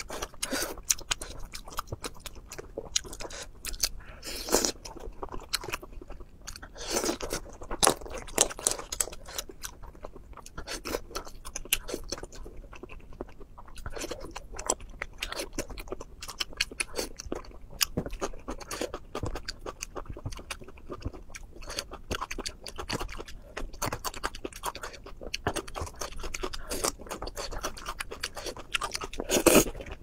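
Close-miked chewing and crunching of spicy seafood, with many irregular wet mouth clicks.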